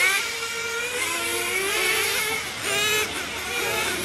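Several RC racing cars' small two-stroke glow engines buzzing around the track, their high, whining pitch rising and falling as they rev through corners and straights.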